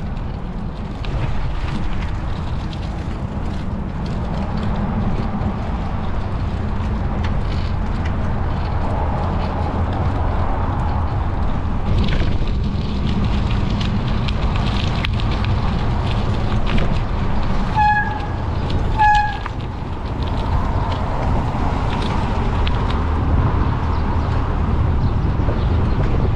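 Bicycle riding on asphalt: steady low wind rumble on the microphone with tyre noise. Two short horn toots about a second apart, a little past halfway through.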